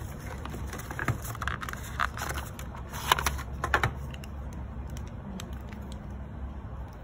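Unboxing noises from a wireless earbud charging case being lifted out of its cardboard box and handled in its plastic wrap: short rustles and light clicks, busiest in the first four seconds and sparser after.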